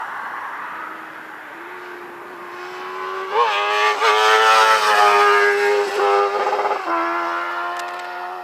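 Suzuki GSX-R 750 inline-four motorcycle engine revved: a steady note swells about three seconds in, is held loud and high for around three seconds with a couple of wavering blips, then drops back sharply near the end.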